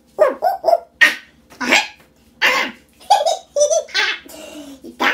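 A man's wordless clowning vocal sounds: short yelp-like exclamations and breathy, laugh-like bursts, with a soft hiss about four seconds in.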